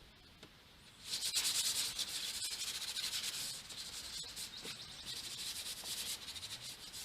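Sandpaper rubbed by hand over a wooden deck rail in quick back-and-forth strokes, starting about a second in.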